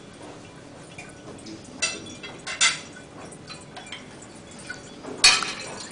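Light scrapes and clinks of a metal wine-opening tool working on a wine bottle, with one sharp click about five seconds in.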